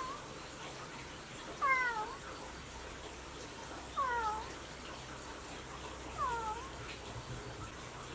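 A cat meowing: three short meows, each falling in pitch, about every two seconds.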